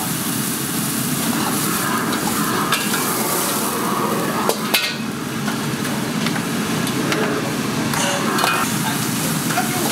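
Steady rushing hiss of a commercial wok burner and water bubbling in the wok. Sharp clanks of a steel ladle against the wok and a perforated strainer come through it, the sharpest about halfway through, as blanched greens and mushrooms are tipped out to drain.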